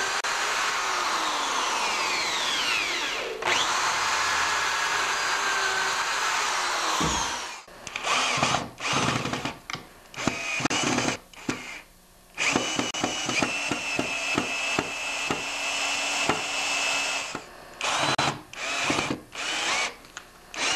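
Corded electric drill boring pilot holes into thick fir planks, running steadily while its motor pitch rises and falls. About seven and a half seconds in, a cordless drill takes over, driving long wood screws into the planks in a string of short bursts with one longer steady run in the middle.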